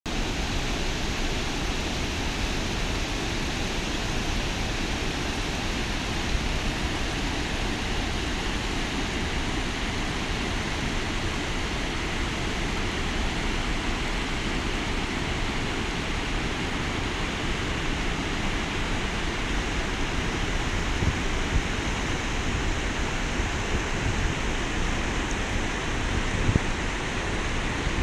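Waterfall and river rapids rushing over rock, a steady noise that holds even throughout, with a few brief soft bumps near the end.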